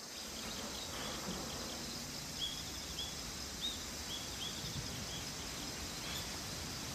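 Outdoor countryside ambience: a steady hiss of insects, with short high bird chirps coming every second or so.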